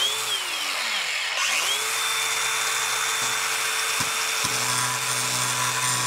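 DeWalt angle grinder spinning up and coasting down within the first second or so, then started again and running steadily. Its abrasive disc grinds the undercoating off a car's underbody sheet metal down to bare metal, ready for welding.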